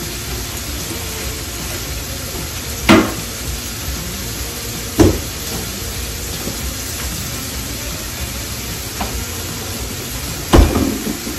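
Sausage patties and salmon frying with a steady sizzle on an electric griddle. Three loud knocks cut through it: about three seconds in, about five seconds in, and near the end.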